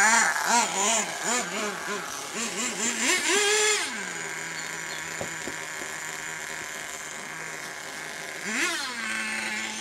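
Small glow-fuel engine of an HPI Firestorm nitro RC truck revved in a quick series of short blips, then held high for a moment before dropping to a steady idle about four seconds in. One more brief rev comes near the end before it settles back to idle.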